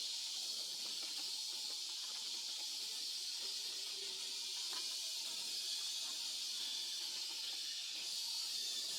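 A steady high-pitched hiss that does not change in level.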